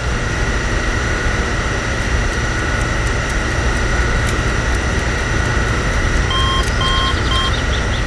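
Added sound effect of a fuel pump dispensing: a steady machine hum with a low rumble and a high whine. Three short beeps sound near the end.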